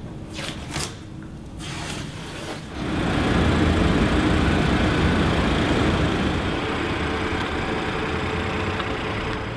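Masking plastic film and tape crackling as they are peeled off freshly painted bodywork, then a steady machine noise with a low drone starts about three seconds in.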